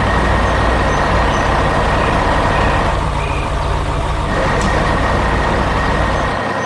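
Heavy diesel construction machinery running steadily with a deep engine rumble and mechanical clatter; the deep rumble drops away near the end.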